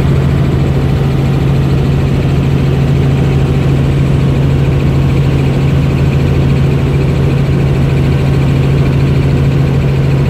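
Helicopter in flight, heard from inside the cabin: a loud, steady drone with a strong low hum that holds unchanged throughout.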